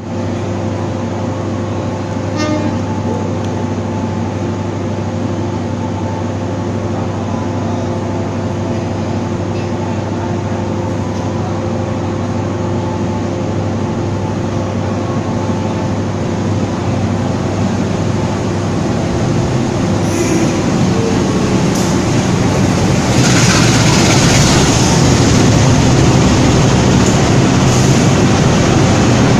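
Diesel passenger train at a station platform: a steady engine hum with several held tones. In the last several seconds it grows louder and rougher as the coaches roll past close by.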